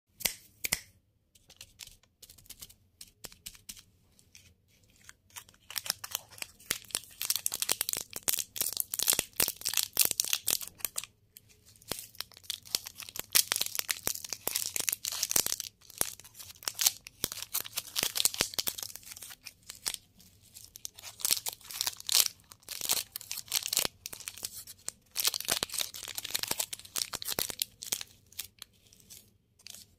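Shiny plastic candy wrappers crinkling and tearing as fingers handle and open them, in dense runs of crackling with short pauses between.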